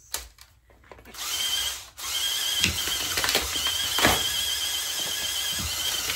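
VEX robot's 11W intake motors running with a steady high whine that sets in about a second in, with several sharp knocks as blocks are fed through the rollers.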